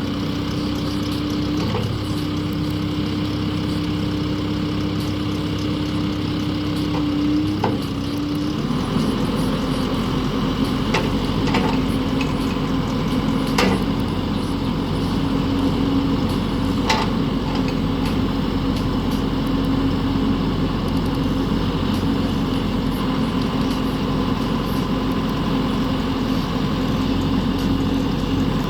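John Deere 410L backhoe loader's diesel engine running steadily. About eight seconds in its note drops a little and a deeper rumble comes in, and a few sharp knocks follow.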